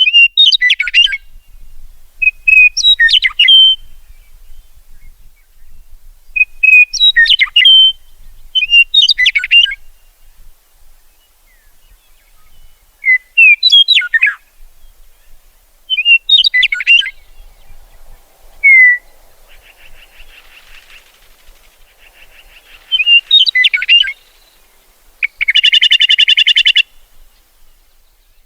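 Meadowlark singing: short whistled phrases of gliding notes, repeated every few seconds. Near the end comes a harsh buzzy rattle call.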